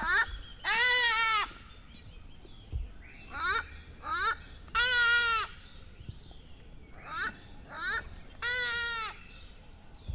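Repeated animal calls: three long calls of under a second each, about four seconds apart, with shorter calls in between.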